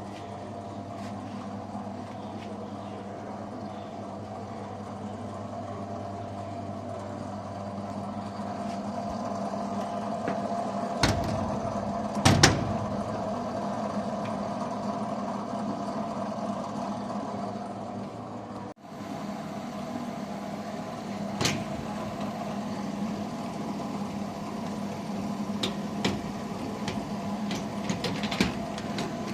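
Argon (TIG) welding on an aluminium engine block: a steady buzzing hum from the welding arc and welder, with a few sharp knocks, the loudest about halfway through.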